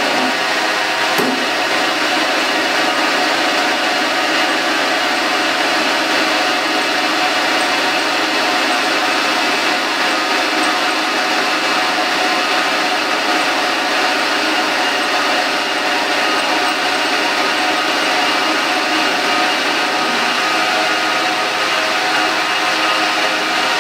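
Blanchard 18-36 vertical rotary surface grinder running under power, a steady machine hum and whine that holds even throughout. A faint click about a second in.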